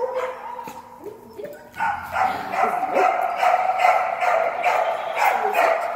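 Dog barking in a fast, steady run of about five barks a second, starting about two seconds in, after a few scattered short yelps.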